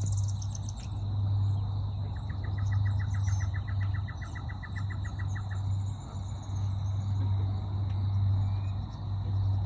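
Evening insect chorus: a steady high shrill of crickets and other insects. Over it, a rapid run of even notes, about eight a second, lasts some three seconds in the first half, with a low steady hum underneath.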